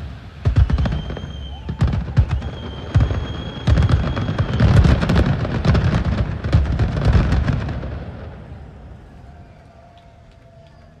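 Fireworks going off in quick succession: heavy booms mixed with crackling bursts, with a steady high whistle through the first half. The barrage fades away over the last few seconds.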